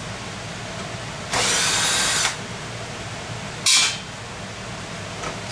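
Cordless drill-driver spinning in two spurts: one of about a second with a slightly rising whine, then a short blip about two seconds later. It is working the screws of a water heater's sheet-metal access panel.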